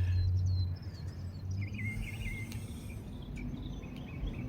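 Outdoor ambience: birds chirping with a repeated wavering call, starting a little over a second in, over a low hum at the very start.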